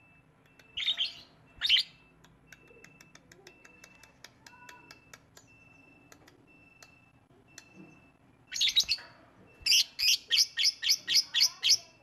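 Fischer's lovebird calling: two loud shrill chirps about a second in, faint clicking after them, then near the end a loud burst of calls and a rapid run of about nine sharp chirps at four to five a second.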